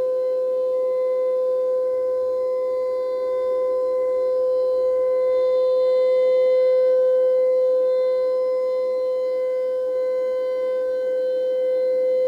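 Civil defense siren sound effect holding one steady tone, its loudness slowly swelling and fading, loudest about halfway through.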